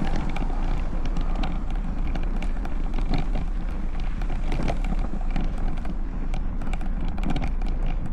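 Specialized Stumpjumper Evo mountain bike riding a dirt trail, heard from a handlebar-mounted camera: steady wind rumble on the microphone with tyre noise and frequent clicks and rattles from the bike.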